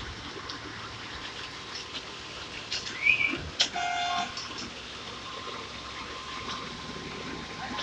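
Concrete boom pump working, a steady background drone, with a short rising squeal about three seconds in and, just after it, a loud half-second high toot.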